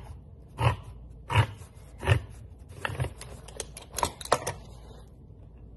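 Can opener cutting around the lid of a tin can, a crunching click with each turn, about one every 0.7 s, then a quicker run of smaller clicks that stops about five seconds in.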